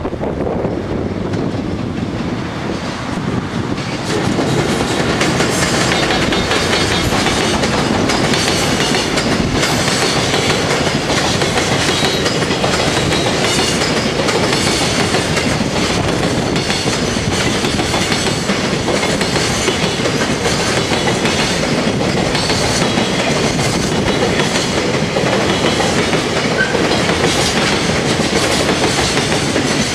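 Freight train hauled by an EF210 electric locomotive passing close by, growing louder about four seconds in as it draws level, then a long string of container wagons rolling past with a steady clatter of wheels on the rails.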